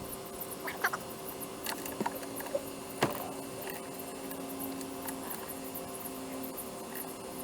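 A few light, sharp clicks and taps of hand tools on the valve train of a Stihl BR600 blower engine while the too-tight valves are loosened, the loudest about three seconds in, over a steady faint hum.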